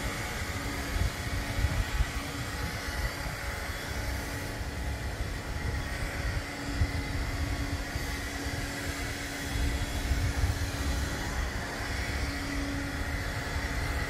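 Wind buffeting the phone's microphone, a gusty rumble with a few louder thumps, over a faint steady hum.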